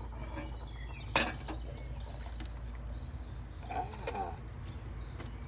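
A single sharp metallic clink about a second in as a metal coffee pot is lifted off the top of a small wood stove, then coffee poured from the pot into a bowl near the middle.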